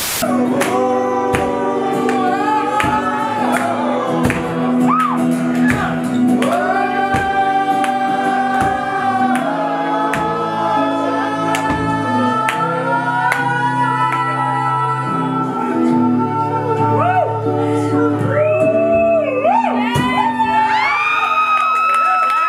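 A man sings long held notes over a strummed acoustic guitar in a live performance, rising to long, high sustained notes near the end.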